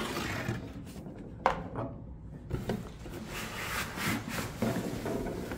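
A green plastic spin-mop bucket and its parts being handled and pulled out of a cardboard box: irregular cardboard and plastic rubbing and scraping, with a sharp knock about one and a half seconds in.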